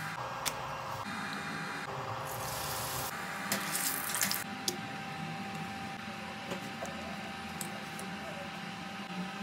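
Sizzling in a hot frying pan, heard in a few short cut-together stretches with sharp clicks among them. After about four and a half seconds it drops to a quieter steady background with a few light taps.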